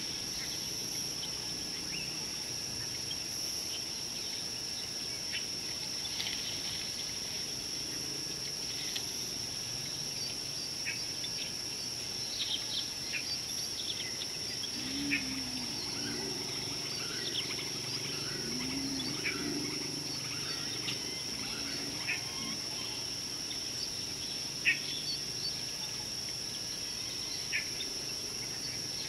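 Bush ambience: a steady, high-pitched insect drone with many short bird chirps scattered through it, and two low calls near the middle.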